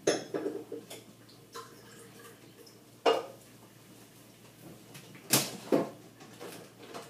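Kitchen items being handled and set down on a counter and shelf: a few separate knocks and clatters, one at the start, one about three seconds in and two close together about five and a half seconds in.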